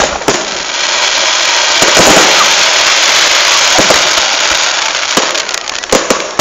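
Fireworks going off: a couple of sharp bangs, then a dense crackling hiss of many small pops lasting several seconds with booms scattered through it, and a few more bangs near the end.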